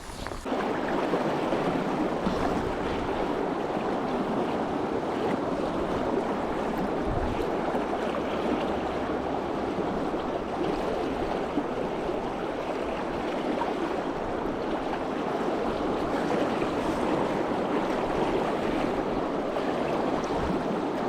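Steady rush of flowing river water, starting suddenly about half a second in.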